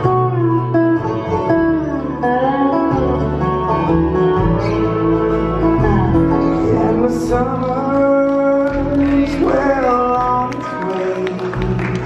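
Live bluegrass band playing: fiddle, acoustic guitar, upright bass, five-string banjo and a steel or resonator guitar.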